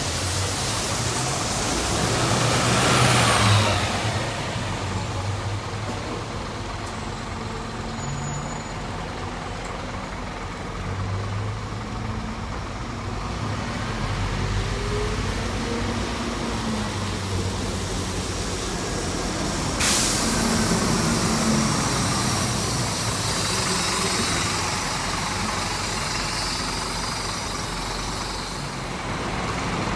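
City diesel buses pulling in and driving off, engines running with tyre hiss on a wet road. A sharp air-brake hiss comes about two-thirds through, and one bus passes loudly close by early on.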